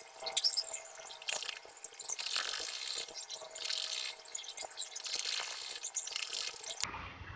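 Rustling and crinkling of handbag fabric being handled and fed under a sewing machine's presser foot, in uneven swells. It cuts off abruptly near the end, leaving a faint low hum.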